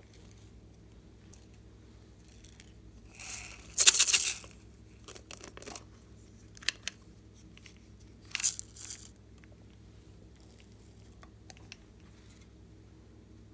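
Small plastic toy containers handled and snapped open, and tiny clay slices and confetti poured out of them into a glass dish: a few short rustling bursts and sharp clicks, the loudest about four seconds in and another about eight and a half seconds in.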